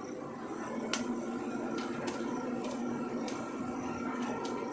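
Borewell drilling rig running steadily, a hum with a few fixed tones, while water is blown out of the bore. Sharp clicks break in irregularly, roughly once a second.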